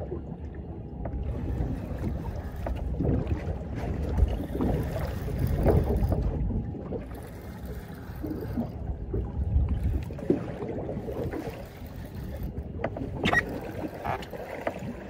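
Wind buffeting the microphone and choppy water slapping against the hull of a small fibreglass boat, the noise swelling and easing unevenly, with scattered knocks and a sharper click about thirteen seconds in.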